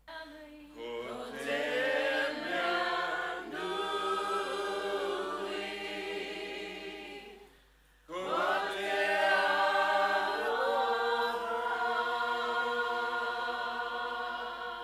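Unaccompanied chanted singing with long held notes, in two phrases separated by a short pause about eight seconds in.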